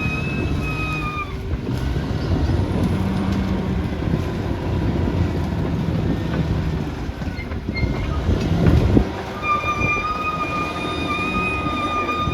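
Caterpillar D6R XL bulldozer working: its diesel engine runs steadily under load with the rumble of its tracks. The sound swells about eight seconds in and drops off sharply about a second later.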